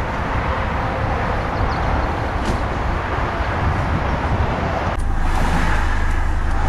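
Steady rumbling noise, then about five seconds in, at a cut, a louder and steadier car engine and road drone.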